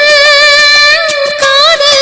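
Tamil film song music without lyrics: a single melody line, held and bending gently between notes, over soft accompaniment.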